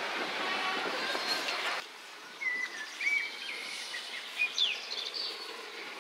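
Rolling noise of departing railway coaches on the track, cut off abruptly about two seconds in. Birds then chirp and whistle in short calls, some gliding in pitch, over a quiet background.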